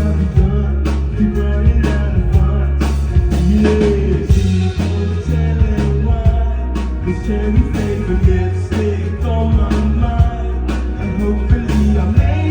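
Live band playing a song: drum hits over heavy bass and guitar, with a voice singing.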